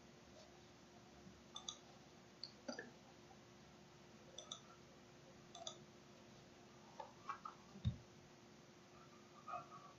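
Computer mouse clicks, about eight short single and double clicks scattered over faint room noise with a steady low hum, and a duller thump nearly eight seconds in.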